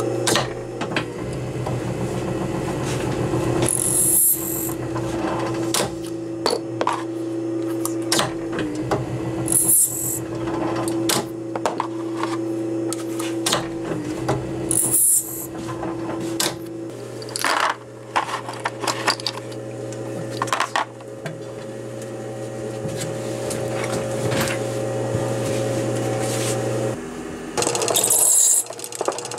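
Small bench lathe running with a steady motor hum as fountain-pen parts are turned, with scattered clicks and scrapes from the tool and short hissing bursts every five or six seconds. Near the end the hum changes and a hand-held cutter scrapes clear plastic on the spinning work.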